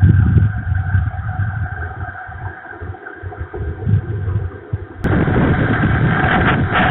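Wind buffeting the microphone of an outdoor nest camera in gusts, a low rumble that surges and drops. About five seconds in it switches abruptly to a louder, steadier rush of storm wind.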